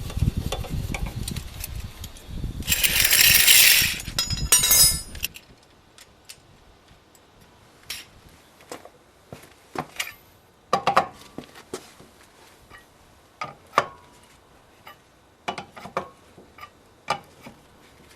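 Hand tools clinking and knocking during a car tyre change: scattered sharp metallic clinks and taps. They follow a few seconds of loud low rumble and handling noise with two short bursts of hiss.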